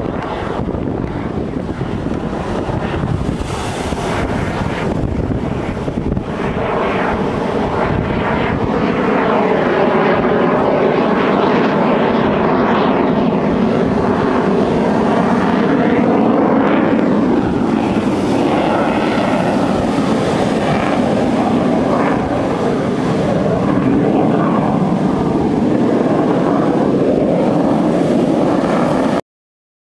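Propeller aircraft engines droning steadily, growing louder over the first ten seconds and then holding, mixed with wind noise on the microphone. The sound cuts off abruptly about a second before the end.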